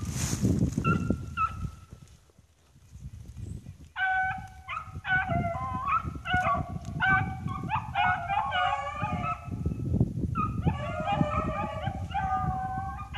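A pack of rabbit-hunting dogs baying on a cottontail's trail. A few short yelps come first, then a lull, then from about four seconds in several dogs cry together without a break as the pack runs the rabbit. A low rumbling noise runs underneath.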